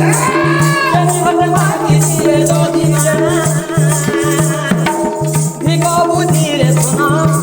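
Folk instrumental music for a dand dance: a drum and jingling rattle-like percussion keep a fast, even beat under a wavering melody line.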